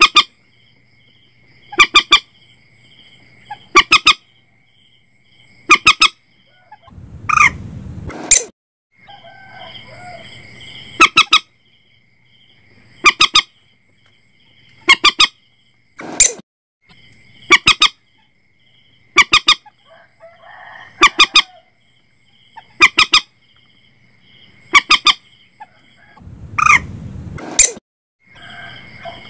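Common moorhen (mandar batu) calling: loud, short, harsh notes in twos and threes, repeated about every two seconds. A steady high whine runs behind them.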